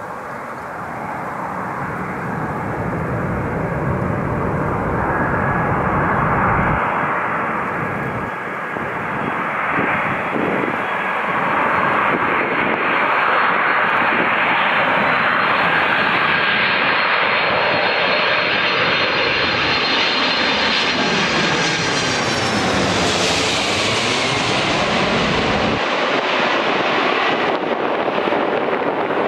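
Boeing 747-400F freighter's four jet engines on landing approach, the noise building as it comes in, with a high fan whine rising through the middle. It passes overhead about two-thirds of the way in, the whine dropping away while the heavy rumble goes on.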